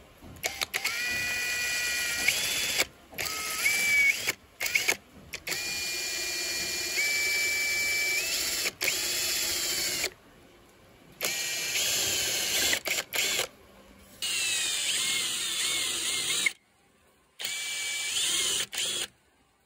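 A spinning twist drill bit boring shallow dimples into a bamboo cup, running with a high whine that steps up in pitch now and then. It comes in short stretches that cut off abruptly.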